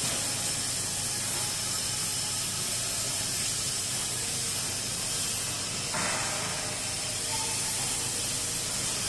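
Steady high hiss of workshop background noise, with a rougher, lower rushing noise joining about six seconds in.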